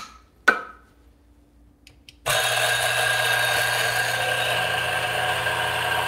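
Two sharp clicks, then about two seconds in an electric coffee grinder starts and runs steadily, grinding espresso beans.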